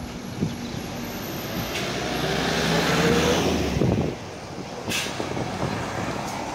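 Tour coach's diesel engine running as the bus pulls away around the corner, revving up and getting louder, then dropping off suddenly about four seconds in. A short hiss follows about a second later.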